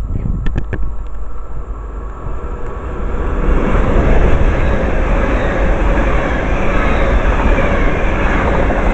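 Train passing through the station, its rumble building about three seconds in and then holding steady, with wind buffeting the microphone. A few sharp clicks come in the first second.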